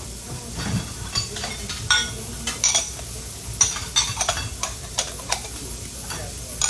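Metal kitchen utensils clinking and scraping against cookware, a quick run of short, sharp clinks with a faint ring, over a steady sizzle of food frying.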